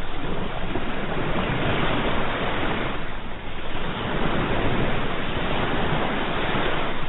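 Ocean surf: waves breaking and washing in a continuous hiss that swells and ebbs, easing briefly about three seconds in.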